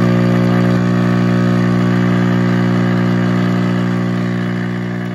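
Admiral 6F11-N tube radio-phonograph's speaker giving a loud, steady mains hum, a buzz rich in overtones, easing slightly toward the end. The hum is the sign of failed power-supply filter capacitors.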